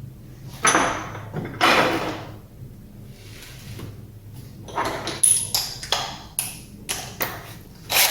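Metal hand tools and sockets handled on a workbench. Two longer sliding metallic scrapes come in the first two seconds, then a run of sharp clinks and knocks.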